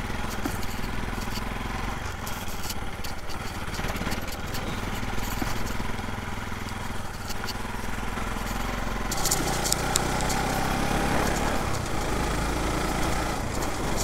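Motorcycle engine running steadily while riding over a rough dirt road, with noisy rush from the ride. It gets a little louder about nine seconds in.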